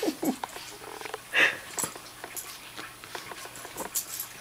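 A German Shepherd and a Chihuahua puppy play-wrestling on a fabric loveseat. A couple of short, falling vocal sounds from the dogs come right at the start, followed by scuffling and light taps on the upholstery, with a louder rustle about a second and a half in.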